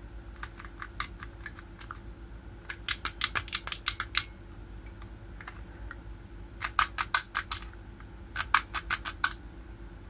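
Quick runs of light, sharp clicks in four short bursts, the loudest near the end, over a faint steady hum.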